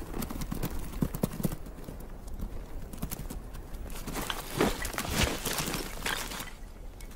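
Bharal hooves clattering on rock and scree as rams chase down a steep slope: a run of sharp knocks, then a denser rush of scuffling and loose stones between about four and six and a half seconds in.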